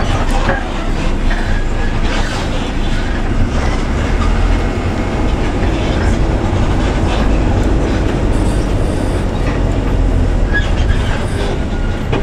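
Bus engine running and the bus rolling down a rough, narrow road, heard from inside the cab: a steady low rumble with constant rattling and knocking from the body and fittings.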